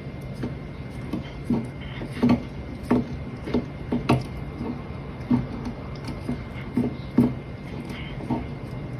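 A cat gnawing on a chair's rounded wooden arm, its teeth knocking and scraping on the wood in short clicks about twice a second.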